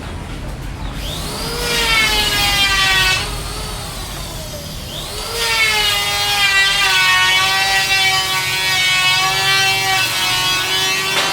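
Electric power saw cutting wood in two runs, a short one and a longer one. Each time the motor's whine rises as it spins up, then holds steady and sags slightly as the blade bites.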